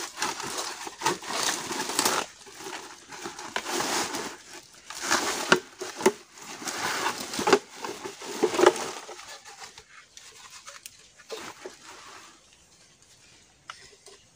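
Woven plastic sack crinkling and rustling as it is handled, with scratchy scrapes and small knocks, dying down after about nine seconds.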